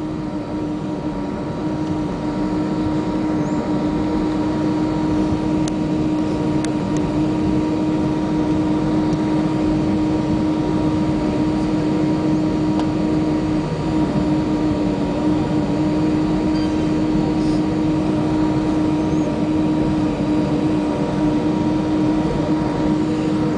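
Steady cabin drone of an Airbus A320-232 taxiing, its IAE V2500 turbofan engines running at low taxi thrust, with a constant low hum running through it. The drone swells slightly over the first couple of seconds.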